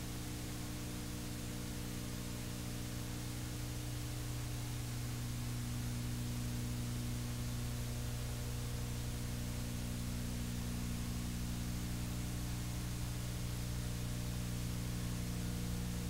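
Steady electrical hum with several evenly spaced pitched lines under a constant hiss, nothing else: the noise floor of an old videotape recording.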